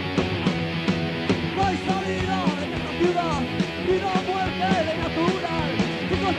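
Live rock band playing a punk-rock song: electric guitars, bass and drums keeping a steady beat, with a melody line of bending notes coming in about a second and a half in.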